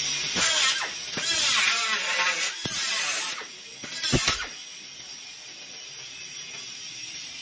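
Small handheld cutoff grinder cutting into a steel exhaust pipe at a clamp, throwing sparks. It runs in four short bursts, its pitch dipping each time the wheel bites and then recovering. It stops about four and a half seconds in, leaving a quieter steady hiss.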